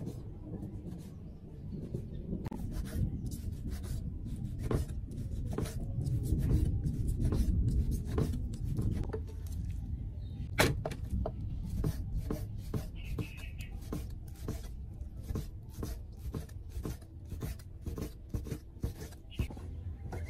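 Large knife slicing raw beef on a round wooden chopping block: a steady run of short taps as the blade meets the wood, about two or three a second, with one sharper knock a little past halfway. A low rumble rises under the strokes for a few seconds from about six seconds in.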